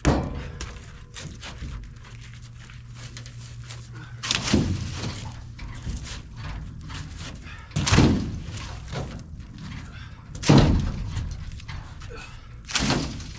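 Heavy thuds, about five, a few seconds apart, each with a brief brushy rustle: cut tree limbs and logs being thrown down onto a pile.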